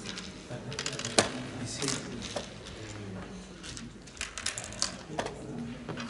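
Oware seeds clicking and rattling into the hollows of a wooden oware board as a player sows them pit by pit: small hard clicks in irregular clusters.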